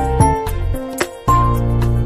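Instrumental background music with a bass line and a light beat.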